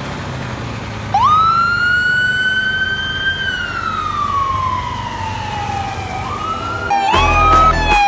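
Fire truck siren starting about a second in: one slow wail that climbs, then falls over several seconds, over the truck's running engine. Near the end come quicker siren sweeps with a deep horn blast.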